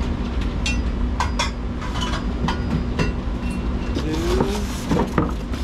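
Unpacking a standing desk: scattered clicks and knocks as its metal support bar and the cardboard box are handled, with short squeaks near the end as the polystyrene packing is moved. A steady low hum runs underneath.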